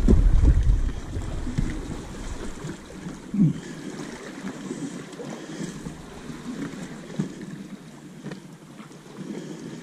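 Wind buffeting the microphone, with a heavy low rumble that drops away about three and a half seconds in, leaving a lighter wind hiss with faint small knocks.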